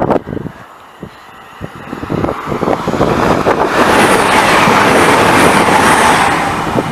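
Train passing on the line, its rumble and rail noise building from about two seconds in and staying loud for the rest, with scattered clicks of wheels over the rails.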